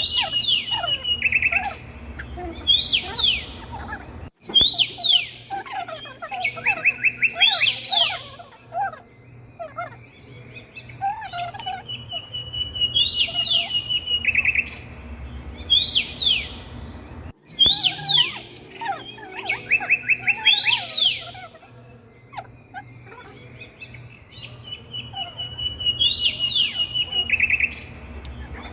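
Birdsong from several birds: chirps, high falling whistles and trills. The same phrases repeat about every thirteen seconds, as in a looped recording.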